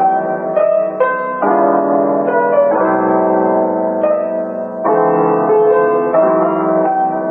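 Background music: piano playing chords, the notes changing every half second or so.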